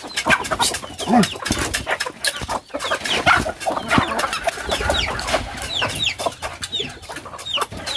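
A flock of chickens and chicks clucking and peeping as they are fed, the chicks' short falling cheeps repeating through the second half. Many small sharp clicks and taps run underneath.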